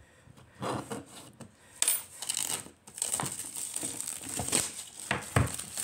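Unboxing handling noise: a series of sharp clinks and knocks, about six, as the boxed iPad and hands bump against a glass tabletop.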